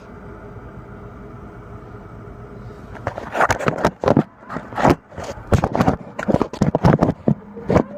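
A steady low hum for about three seconds, then a quick, irregular run of knocks, scrapes and rustling.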